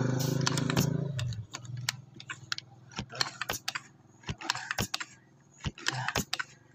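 A voice trails off in the first second, then scattered light clicks and taps, about a dozen at uneven intervals, from the air rifle and scope being handled between shots.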